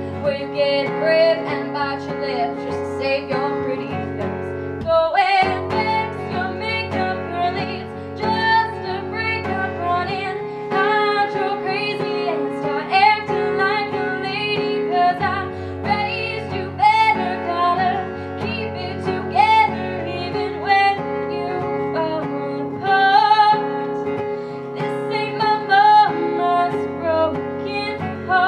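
A woman singing live while strumming an acoustic guitar, with a short break in the music about five seconds in.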